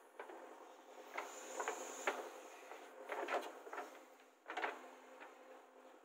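JCB 3DX backhoe loader working its digging arm: a string of irregular clunks and scraping knocks from the boom and bucket, over a faint steady engine hum.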